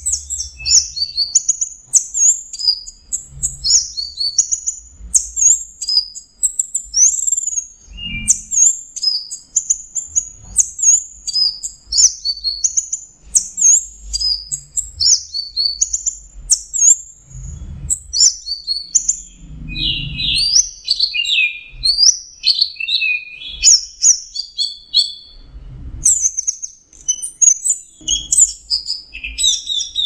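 Orange-headed thrush (anis merah) singing in the continuous 'teler' style: an almost unbroken stream of quick, high chirping notes and varied phrases, dropping to lower-pitched phrases a little past the middle.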